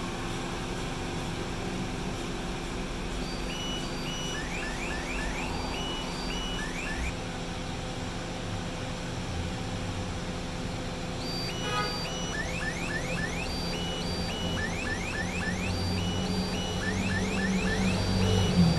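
Electronic car-style alarm sounding from about three seconds in, cycling between steady high tones and quick rising chirps, over a steady low hum that grows louder near the end.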